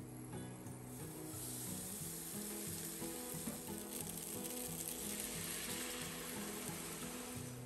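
Frying sizzle in a non-stick pan as cooked fusilli is tossed with sautéed cured meat, curry leaves and curry powder. The sizzle starts about a second in and keeps on. Background music plays underneath.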